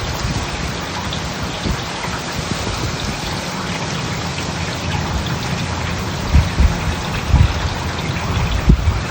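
Heavy cloudburst rain pouring down in a steady, dense hiss. Several brief low thumps come in the second half.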